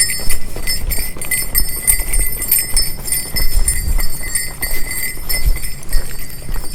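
A hiker's bear bell jingling continuously with an irregular shaking rhythm, mixed with thudding footsteps on the trail.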